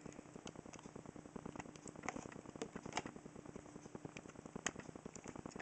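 Faint scattered clicks and light clatter of plastic Lego bricks being handled and pressed onto a build, the sharpest clicks about three and four and a half seconds in.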